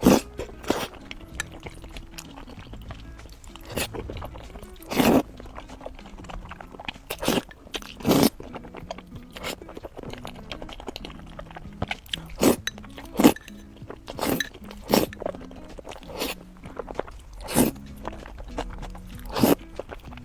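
Crunchy food being bitten and chewed close to the microphone, about a dozen loud, sharp crunches at irregular intervals, over quiet background music.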